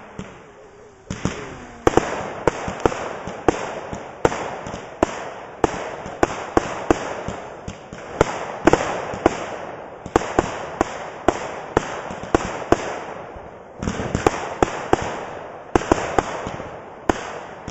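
Aerial fireworks firing shot after shot: sharp bangs about two a second, each with a noisy trail, starting about a second in, with a brief pause about 14 s in.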